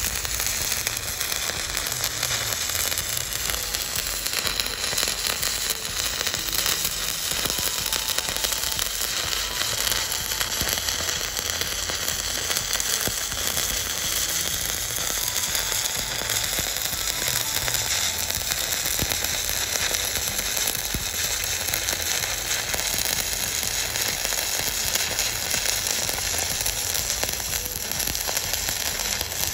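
Stick (MMA) welding arc burning steadily along steel with a coated electrode, fed by a Volt 2-in-1 inverter welder; the sound runs on without a break.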